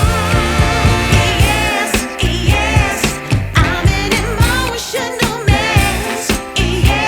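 Background pop music with a steady beat and a wavering sung vocal line.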